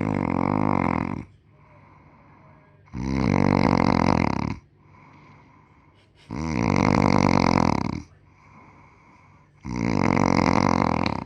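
Snoring: four loud snores, each about a second and a half long and coming about every three seconds, with quiet breaths between them.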